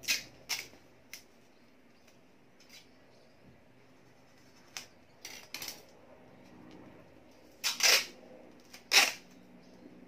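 Masking tape ripped off its roll in short, sharp tears, several times, with the two loudest near the end.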